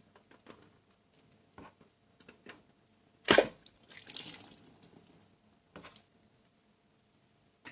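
A liquid-filled balloon bursting with one loud, sharp pop a little before halfway through, its contents splashing out for about a second afterwards; small squeaks and clicks of handling the rubber come before it.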